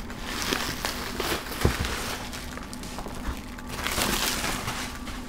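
Black plastic shipping wrap rustling and crinkling as a laptop box is handled and pulled free of it, with a soft knock about a second and a half in and louder rustling near the end.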